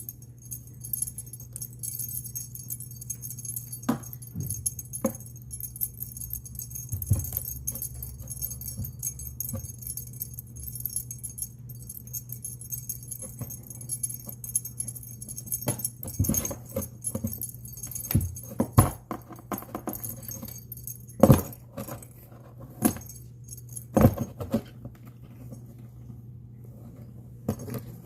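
Jingling of a small bell or metal tags over a steady low hum, followed in the second half by scattered sharp knocks and clicks.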